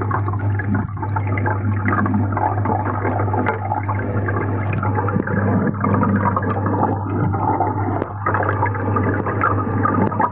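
Aquarium water churning and bubbling, heard muffled through a phone submerged in the tank, over a steady low hum.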